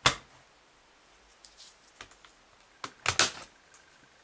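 A laptop's optical drive being slid out of its bay and handled: a sharp plastic click at the start, a few light ticks, then a quick cluster of clacks about three seconds in.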